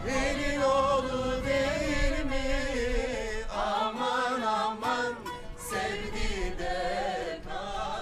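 Music: a voice singing a slow melody with wavering, ornamented pitch.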